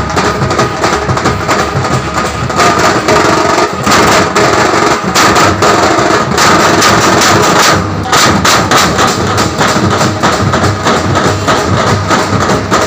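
Loud festival music dominated by fast, dense drumming, with a steady held high tone underneath.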